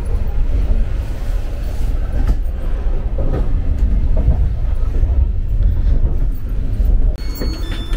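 Moving vehicle running with a steady low rumble.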